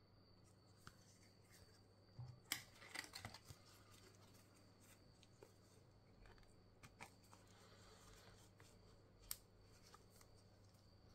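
Faint handling sounds of plastic ID cards being slid into and tapped against the pockets of a leather ID holder: a cluster of clicks and scrapes about two to three and a half seconds in, then a few isolated ticks, over a faint steady hum.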